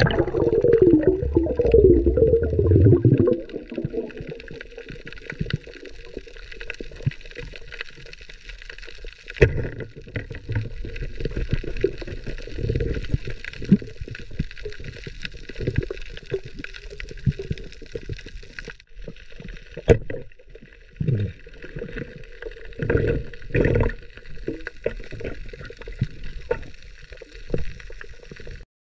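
Water sound picked up underwater: bubbling and gurgling, loudest in the first three seconds, then a quieter irregular wash with scattered knocks and a sharp click about twenty seconds in.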